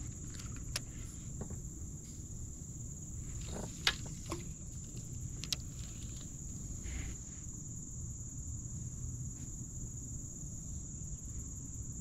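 Steady high-pitched insect drone over a low rumble, with a few light clicks and knocks, the sharpest about four seconds in.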